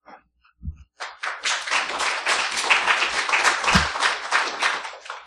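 Audience applauding: many hands clapping, starting about a second in and dying away with a few last claps near the end.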